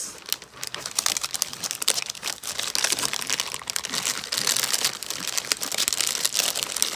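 Plastic cellophane packets of craft supplies crinkling and rustling in irregular crackles as they are handled and slid into a paper pouch.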